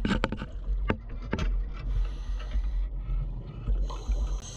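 Underwater camera sound: sharp knocks and taps against the housing, several in the first second and a half, as the speared fish and spear gun are handled close to the camera, over a low steady rumble. A hiss of rising scuba bubbles comes about two seconds in and again near the end.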